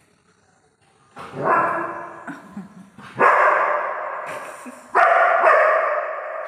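Black Labrador retriever barking three times, about two seconds apart, each loud bark trailing off slowly.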